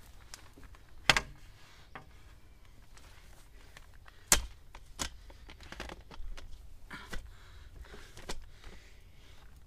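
A handful of sharp knocks and clicks at irregular intervals, the loudest about a second in and about four seconds in, with quieter handling noise between.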